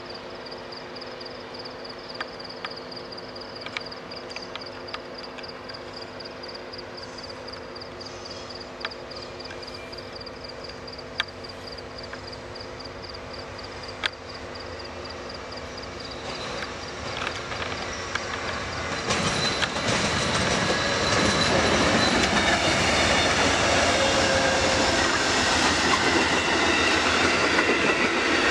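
Amtrak's Coast Starlight, led by a GE P42DC diesel locomotive, approaches and passes close by. At first there is a steady distant engine hum with a fast, high, evenly pulsing ding over it. The noise then builds, and from about twenty seconds in the locomotive and passenger cars rush past with wheels clattering on the rail joints.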